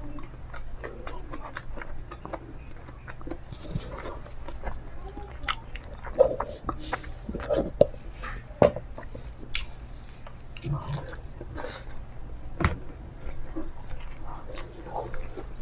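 Someone biting and chewing crispy fried chicken and rice, with irregular short crunches and clicks, a few of them louder.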